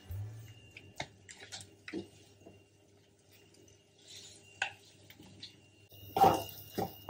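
A few light knocks and scrapes of a wooden spatula against a metal frying pan as thick mashed-potato filling is stirred, with a voice starting near the end.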